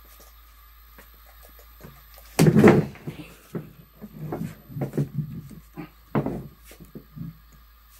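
A loud bump about two and a half seconds in, followed by a run of shorter, irregular knocks and bumps, like a cupboard or objects being handled.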